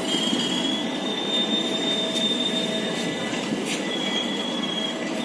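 Passenger train coaches rolling slowly along the platform with a steady rumble and thin, high-pitched wheel squeals that come and go, plus a few sharp clicks.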